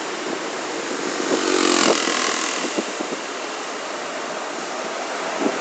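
Roadside traffic: a passing vehicle's engine and tyre noise swells and is loudest about two seconds in, then settles into steady road noise.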